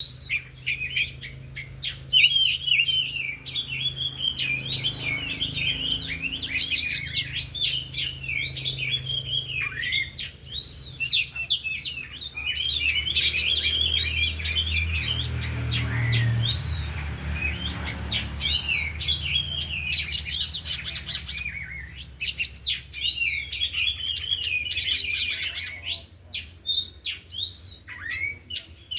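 Several oriental magpie-robins (kacer) singing at once: a dense, varied stream of rapid whistles, chirps and trills, with mimicked phrases of other birds worked in. A faint low steady hum lies underneath.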